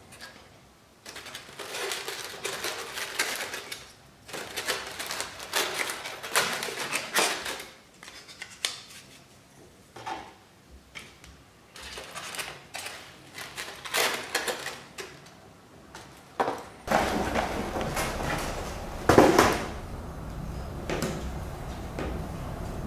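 Kit parts being handled and lifted out of polystyrene foam packaging: irregular bursts of foam scraping and rustling with short gaps. About 17 s in, a steady room hum comes in, and wooden MDF parts are handled and set down on a cutting mat, with the loudest clatter a couple of seconds later.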